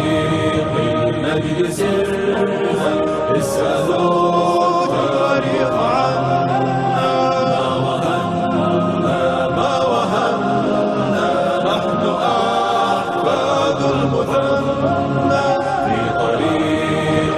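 Wordless vocal chorus chanting layered harmonies, the vocal backing of an Islamic nasheed, with no lyrics sung.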